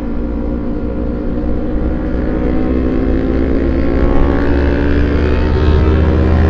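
Kawasaki Ninja 250 FI parallel-twin engine running through a CLD Monster racing exhaust while under way. Its pitch climbs slightly and it grows louder toward the end.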